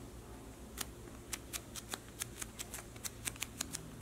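A run of about a dozen light, sharp clicks, coming quicker toward the end, as hands handle a lemon-slice squishy toy with a metal ball-chain keychain.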